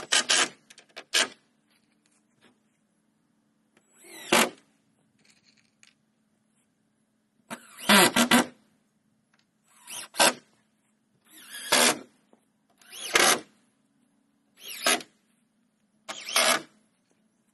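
Cordless drill driving screws into old barn-wood boards, in about nine short bursts one to three seconds apart, each spinning up for under a second as a screw is run in.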